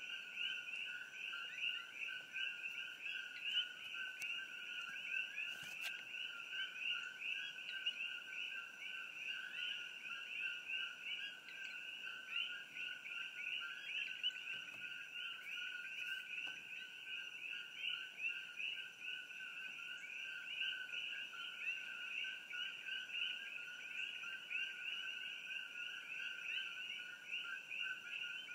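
Dense chorus of many coqui frogs calling over one another: a continuous stream of short two-note 'co-kee' calls, with a faint steady high tone beneath.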